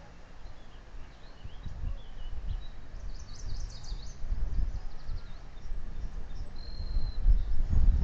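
Wind buffeting the microphone in gusts, a low rumble that grows stronger toward the end. Faint high bird chirps come in a quick cluster about three seconds in, and a short high whistle follows a few seconds later.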